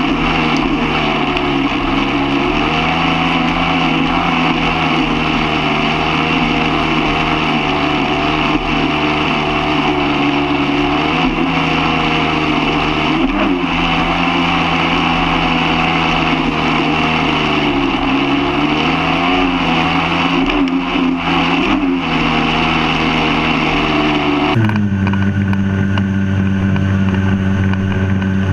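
Two-stroke Sea-Doo personal watercraft engine running at speed over a rush of water spray and wind, its pitch dipping and recovering several times as the throttle eases and picks up again. Near the end the sound cuts abruptly to a lower, steadier engine note.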